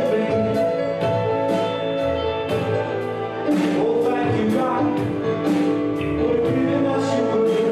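A song playing: singing over sustained instruments, with drums and cymbals keeping a steady beat of about two strokes a second.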